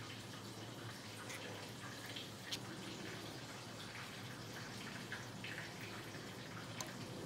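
Quiet kitchen sounds: a few light taps as tomato pieces are set on a plate, then lemon juice dripping and drizzling onto salad leaves.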